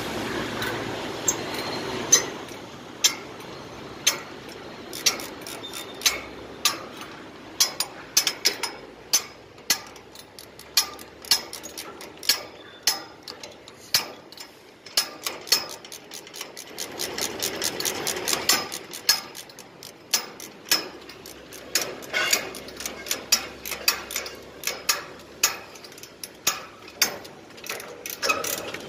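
Scaffold ratchet spanner working the nut of a steel scaffold coupler: a long run of sharp metallic clicks, one or two a second and sometimes in quick clusters. A swell of rushing background noise rises and falls about two-thirds of the way through.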